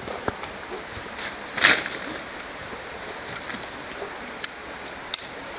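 Shallow creek water running steadily over stones, with a short louder noise from a splash or scrape about a second and a half in and a few sharp clicks, like stones or sticks knocking.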